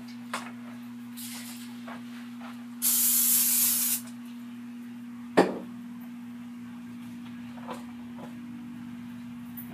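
Cooking oil spray hissing onto breaded fish in an air fryer basket: a short faint spritz, then one loud burst of about a second. A sharp knock follows a moment later.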